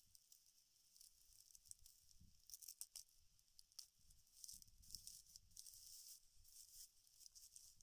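Faint rustling and crackling of dry palm fiber being handled, with a few small sharp clicks about three seconds in.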